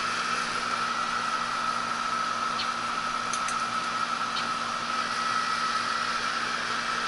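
Running central air-conditioning equipment: a steady fan rush with a constant high whine and a low hum.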